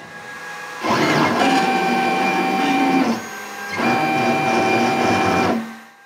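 A hobby CNC machine's stepper motors driving its laser head in two moves of about two seconds each, each with a steady whine, as it burns a cross mark into a drawer bottom.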